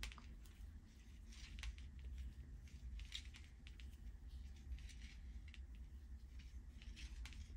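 Faint, irregular little clicks and rustles of metal knitting needles and cotton yarn as stitches are cast on by hand, over a low steady hum.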